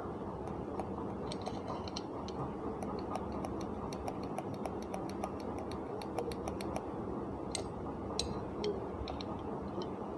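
Light metallic ticks of a thin steel rod tapping and scraping inside a mixer grinder motor's aluminium end housing as oil is worked into the cotton pad around the bush, with a quick run of them in the middle.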